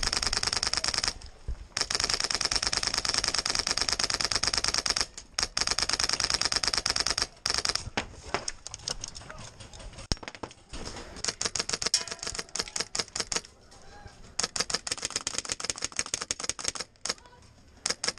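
Airsoft electric guns firing on full auto: long rapid bursts of many shots a second for the first seven seconds or so, broken by brief pauses. After that the bursts are shorter and more scattered.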